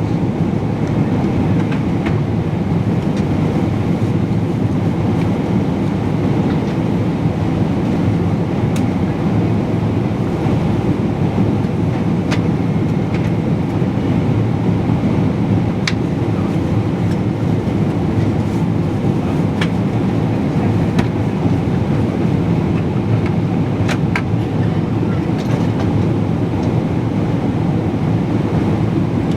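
Steady low rumble of an airliner in flight, heard from inside the passenger cabin: jet engine and airflow noise, with a few faint clicks.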